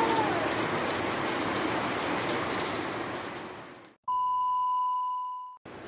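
Heavy typhoon rain pouring down, fading out about two-thirds of the way through. It gives way to a steady 1 kHz test-card beep, an electronic 'please stand by' tone that holds for about a second and a half and cuts off suddenly.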